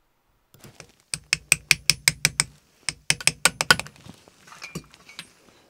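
Quick light taps, about five a second, driving a snap ring down into its groove on a lathe's 5C collet drawbar through a piece of aluminium. There are two runs of taps with a short break between, then a few fainter clicks as the ring seats.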